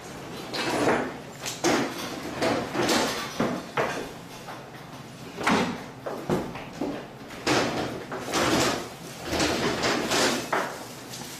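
Irregular clunks and knocks, about one or two a second, of people moving about and handling things in a room.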